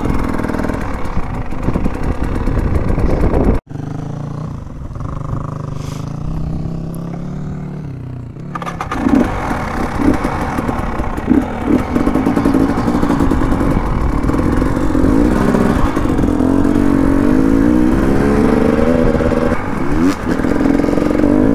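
KTM 300 EXC two-stroke enduro motorcycle engine on an off-road ride. The sound breaks off abruptly about 4 s in, the engine then runs quieter and steadier for a few seconds, and from about 9 s in it revs up and down again under riding load.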